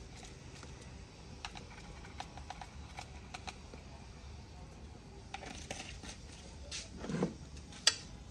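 Scattered light clicks and clinks of cooking utensils against a pot and bowls, with a dull knock and then a sharper clink near the end.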